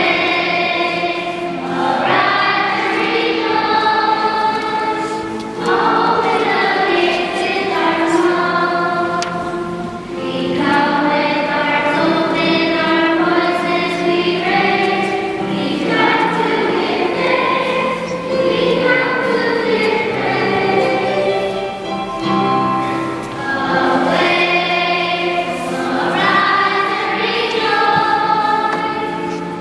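Choir singing a hymn in sustained phrases of a few seconds each, with long held notes.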